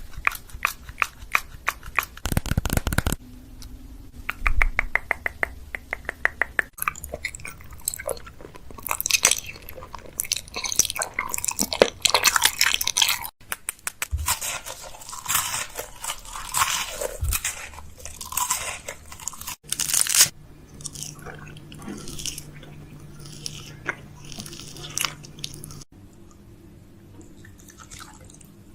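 Close-miked crunching and crinkling from objects being handled, with runs of fast, even tapping or scratching, in several short edited segments.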